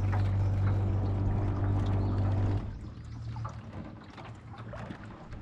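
Small boat motor running with a steady low hum, which cuts out about two and a half seconds in. Water splashing and trickling follows.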